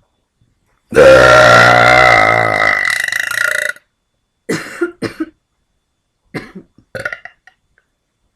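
A person's long, loud burp lasting nearly three seconds, its pitch wobbling as it goes, followed by a few short, quieter sounds.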